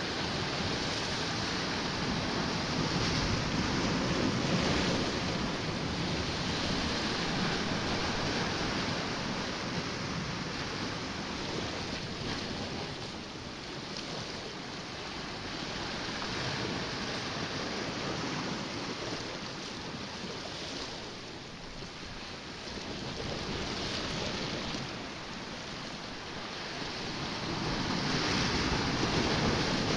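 Sea waves washing against shore rocks, a steady rushing that rises and falls over several seconds, with wind buffeting the microphone.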